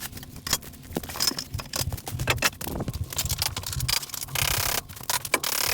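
Hands working vinyl flooring planks: an irregular run of sharp clicks and knocks, with a stretch of scraping about four and a half seconds in.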